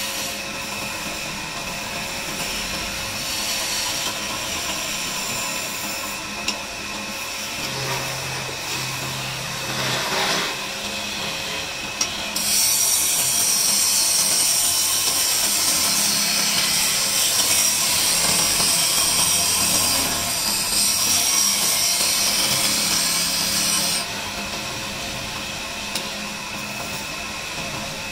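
Wood lathe running while hand-held turning chisels cut a spinning wooden table leg: a steady motor hum under a scraping, hissing cut. In the middle there is a louder, harsher stretch of about ten seconds, as a flat scraper is pressed to the wood.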